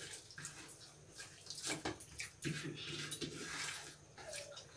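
Wet eating sounds of rice and curry eaten by hand: a run of short smacks and clicks from chewing and from fingers mixing the rice on the plate.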